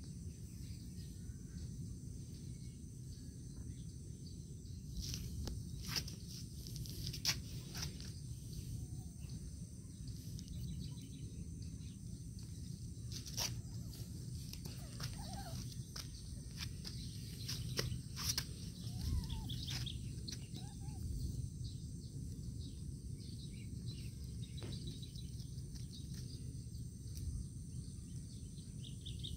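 Quiet outdoor ambience: a steady low rumble and a faint steady high hiss, with scattered soft clicks and a few faint chirps, most of them in the first two-thirds.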